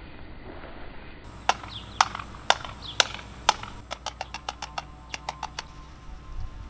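A series of sharp clicks: five strong ones evenly spaced about twice a second, then a quicker run of lighter clicks.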